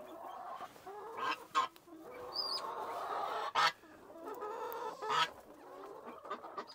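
Several chickens clucking together in a continuous low murmur, with a few short, sharp noises mixed in.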